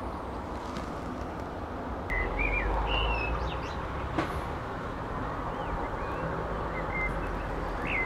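Small birds chirping in short whistled notes scattered through, over a steady low background rumble that swells about two seconds in.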